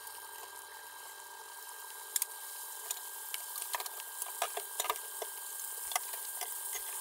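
Breaded chicken pieces deep-frying in a pot of hot oil: steady sizzling with sharp crackles and pops that grow more frequent about two seconds in.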